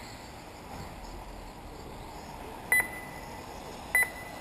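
Two short electronic beeps about a second and a quarter apart, each a single high steady tone, over steady background noise.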